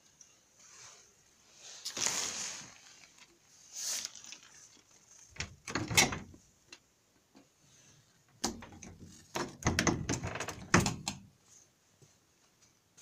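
A door being handled and opened: a string of knocks, rattles and scrapes in short separate bursts, busiest in a cluster of sharp clicks and knocks in the last third.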